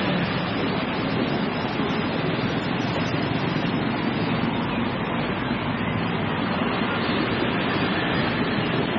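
Steady road traffic noise from cars and motorbikes passing on a busy city road, an even hiss with no single vehicle standing out.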